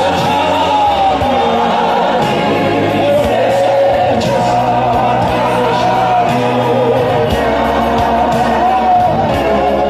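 Live gospel worship song in Zulu: a man sings the melody into a microphone over bass accompaniment, with other voices joining in.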